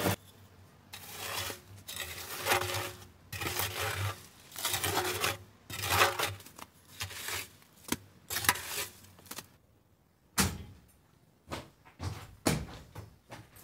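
Hands rubbing and crumbling dry mortar against stone, a string of gritty scrapes and rustles. After a short pause, a series of sharp knocks and clanks.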